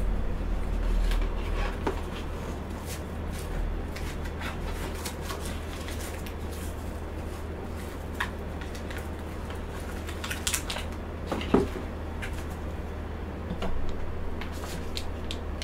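Utensils clinking and tapping against a cheesecake box and plates while a slice of frozen cheesecake is cut and served, with one sharper knock a little past the middle. A steady low hum runs underneath.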